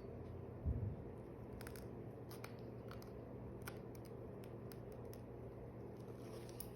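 Scattered short, sharp clicks of metal surgical instruments being worked while suturing, with one dull low bump just under a second in.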